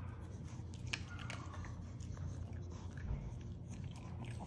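A Maltese dog chewing dog food taken from the hand, with a few sharp crunches over a low steady hum.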